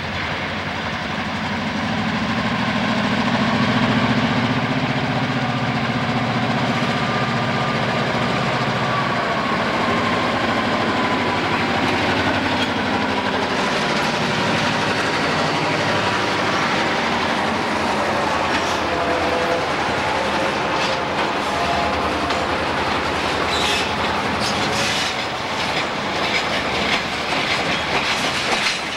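McCloud River Railroad diesel locomotives pass close by with their engines running, loudest in the first few seconds. The freight cars then roll past, wheels clicking over the rail joints, with a thin squeal now and then.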